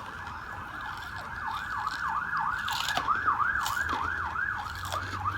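Emergency vehicle siren in fast yelp mode, its pitch sweeping down and up about three or four times a second and growing louder through the middle. A few short crackles are heard over it.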